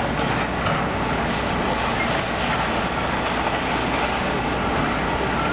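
Steady, even rumble and noise of a hydraulic excavator's diesel engine running while it works, with no sharp crashes or impacts.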